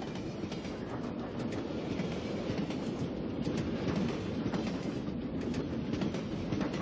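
Moving passenger train heard from inside the carriage: a steady rumble with a running clatter of the wheels over the rails.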